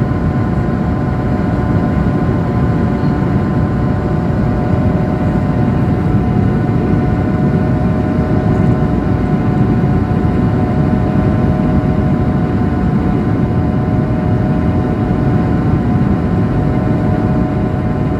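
Cabin noise inside a Swiss Airbus A220-100 in flight, heard from a window seat over the wing: a steady drone from its Pratt & Whitney PW1500G geared turbofan engines and the airflow, with a few steady whining tones over a deep rumble.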